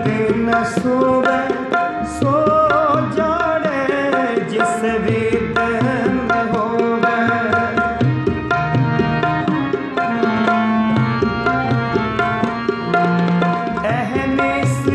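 Harmonium and tabla playing a kirtan melody: the harmonium holds sustained reed notes while the tabla keeps up a steady run of strokes.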